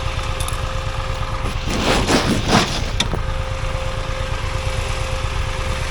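Motorcycle engine idling steadily with an even low pulse. About two seconds in comes a short burst of rustling noise, the loudest sound here, ending in a sharp click about a second later.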